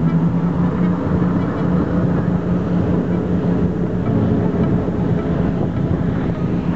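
A boat engine running steadily, with rushing water from a wake and wind noise on the microphone.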